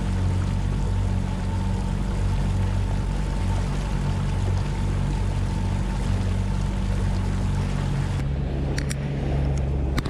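Mercury 60 hp outboard motor running steadily over a rush of water. About eight seconds in, the engine note shifts and a few sharp clicks follow.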